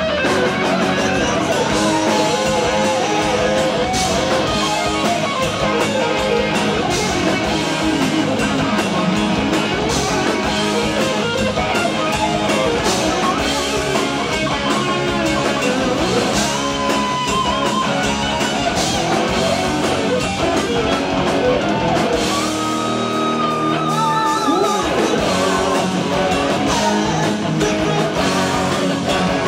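A live rock band playing loud and steady: a lead electric guitar solos with bent notes and vibrato, including a long held high note about two-thirds of the way through, over drums and a second electric guitar.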